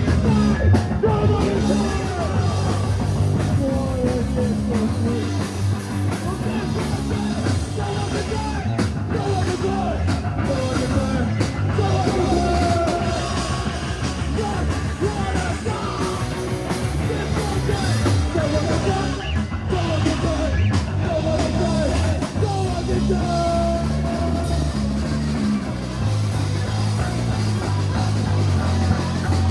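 Live punk rock band playing loud, with drum kit and distorted guitar under shouted singing.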